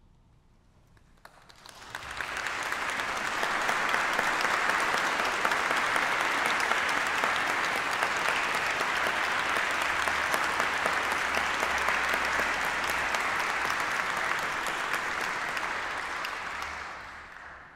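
Audience applauding: after a brief hush, the clapping swells in about two seconds in, holds steady, and fades out near the end.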